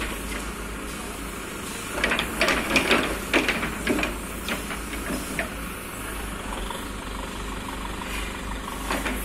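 JCB 3DX backhoe loader's diesel engine running steadily, with a burst of knocks and rattles from about two seconds in, lasting a couple of seconds.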